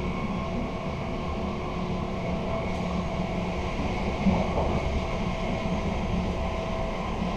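Steady running noise inside a moving intercity passenger carriage: a low rumble of wheels on track with a constant hum, and one brief louder knock about four seconds in.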